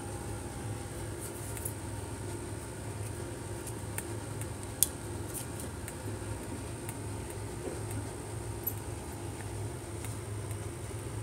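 Steady low hum and hiss of background noise with a faint high whine, broken by a few light clicks and one sharp click about five seconds in.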